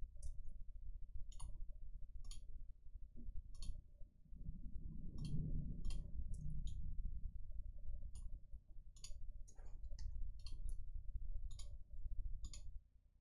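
Computer mouse clicking, single clicks and quick pairs at irregular intervals, over a low steady background hum.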